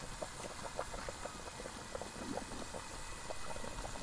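Hot water bubbling in a large aluminium steaming pot around clay pots of chicken, with many small irregular pops.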